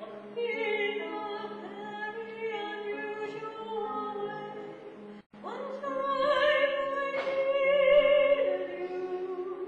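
A woman singing in an operatic style with vibrato, accompanied by grand piano. The sound drops out for an instant a little past halfway, and she swells into a loud, high held note near the end.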